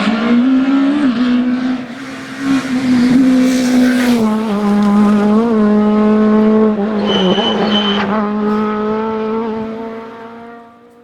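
Renault Mégane Maxi rally car at high revs, the engine note climbing and then held high, with a short high squeal partway through. It fades away as the car goes off into the distance.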